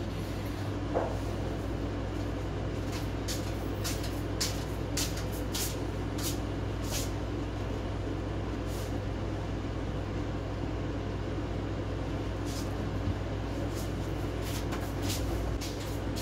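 Steady low background hum and rushing noise, with scattered light clicks of a fork and chicken pieces as they are moved from a frying pan onto a salad plate.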